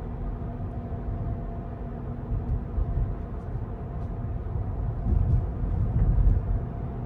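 Rivian R1T electric pickup driving, heard from inside the cabin: steady low tire and road rumble with a faint steady hum from the motor. The rumble swells louder about five to six and a half seconds in.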